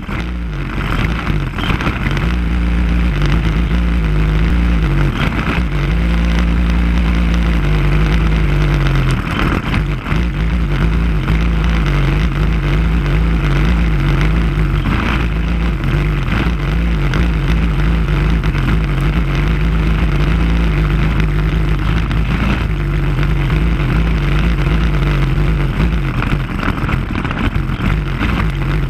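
Racing kart engines at full race pace, the nearby engine note repeatedly rising and falling as the karts accelerate and lift for corners. The sound builds up over the first few seconds, then runs loud and continuous.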